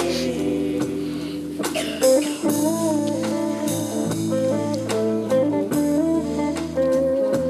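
Instrumental break of a pop-rock song: a melody line over steady bass, guitar and drums, with no singing.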